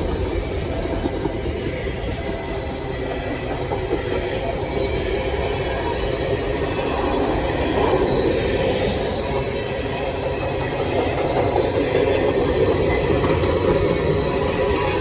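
Freight cars of a long CSX train rolling past, their steel wheels rumbling and clacking steadily over the rail, with a faint high wheel squeal. The rumble grows slightly louder about halfway through.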